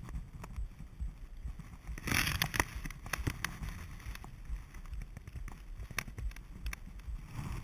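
Wind buffeting a GoPro's microphone as a paratrooper descends under an open parachute, a gusty low rumble with scattered clicks and rustles. A louder rustle comes about two seconds in.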